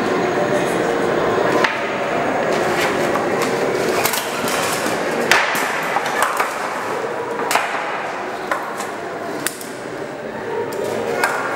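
Wooden poles of a lashed timber frame knocking and clacking as the frame is shifted and hauled on. The knocks come irregularly, about ten of them, and the sharpest falls about five seconds in.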